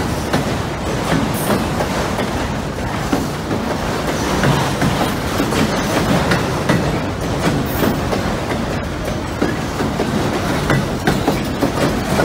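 Empty autorack freight cars rolling past at close range: a steady rumble of wheels on rail with irregular clicking and clattering over the rail joints.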